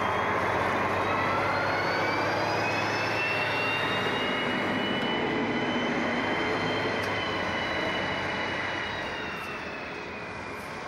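DB class 218 diesel-hydraulic locomotive working under power close by: the diesel engine runs with a high whine that rises, holds, then sinks. The sound fades in the last few seconds as the locomotive moves away.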